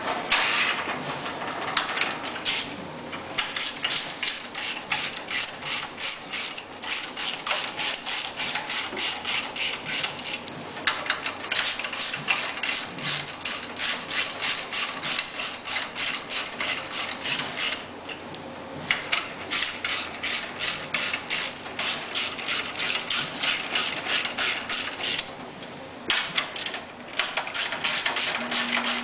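Hand ratchet wrench clicking as bolts are run in on the generator housing. The clicks come in four long runs of about five a second, with short pauses between them.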